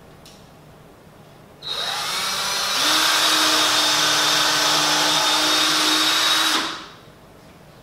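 Power drill working into the wooden back of an Adirondack chair: the motor starts about a second and a half in, picks up to a steady, louder full speed about a second later, runs for about four seconds and stops.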